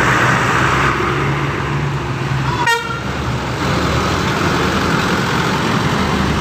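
Buses honking their standard horns over running engines, with one short, sharp horn toot about two and a half seconds in.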